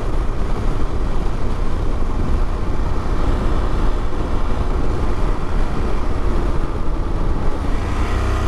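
KTM 890 Adventure parallel-twin motorcycle riding on the road: steady wind noise on the microphone with the engine running underneath. Near the end the engine's pitched note comes through more clearly.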